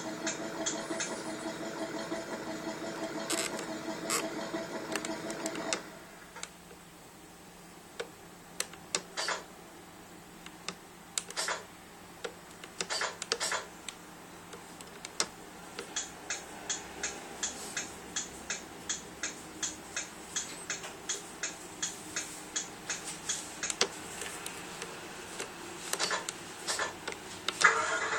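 A vehicle's engine sound runs steadily and cuts off about six seconds in. Scattered sharp clicks follow, settling into a regular ticking about twice a second near the end.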